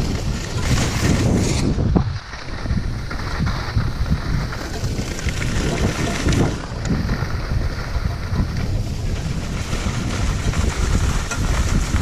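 Wind rushing and rumbling over a camera microphone moving fast down a snowy slope, with the hiss of sliding over snow, steady apart from a brief dip about two seconds in.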